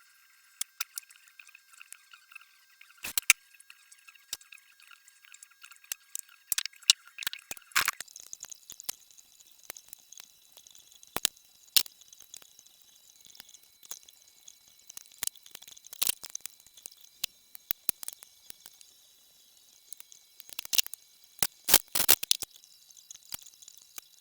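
Hand tools clicking and clinking against metal engine parts during hands-on work in an engine bay: scattered sharp clicks, some in quick clusters, over a faint steady high-pitched hum.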